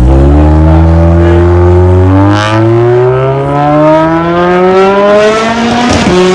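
Performance car engine accelerating hard, its pitch climbing steadily for about six seconds, then dropping suddenly with an upshift near the end and climbing again.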